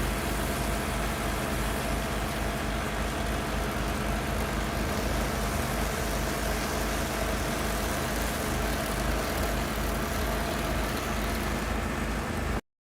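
Kohler Command Pro CH440 single-cylinder engine of a 14 HP stump grinder running steadily at an even speed. It cuts off abruptly near the end.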